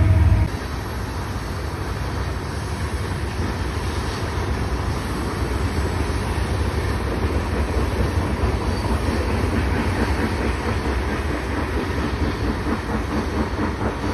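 Train on the tracks below: a steady rumble and clatter of rail cars rolling along, with a faint high wheel squeal now and then. A louder low hum cuts off about half a second in.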